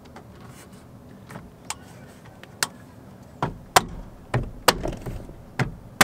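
Plastic door-mirror trim cover, fitted with a tweeter, being pressed and knocked onto its retaining clips. Sharp plastic clicks come singly at first, then faster with dull knocks in the second half as the clips are pushed home.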